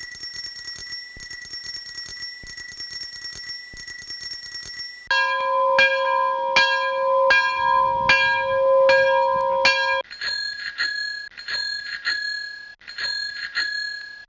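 A run of bell sound effects. First a small high bell rings fast and without a break for about five seconds. Then a larger, lower bell is struck about eight times at an even, slow pace, and after about ten seconds a smaller, higher bell rings in quicker strokes.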